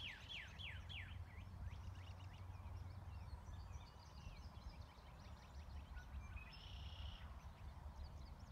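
Rural outdoor ambience of small birds singing. A quick run of falling whistled notes comes in the first second, then scattered faint chirps and a short buzzy note about seven seconds in, over a low steady rumble.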